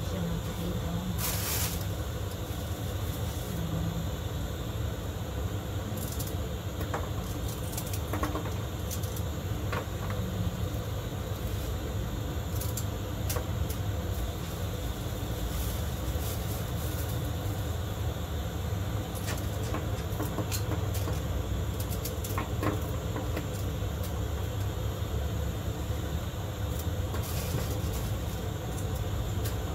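Steady low rumble throughout, with scattered light clicks and rustles as leafy greens are handled and pushed into a basin of salted water.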